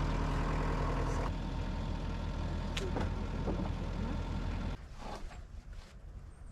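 Sawmill engine idling steadily, then dropping away sharply about three-quarters of the way through, as if shut off or throttled right down.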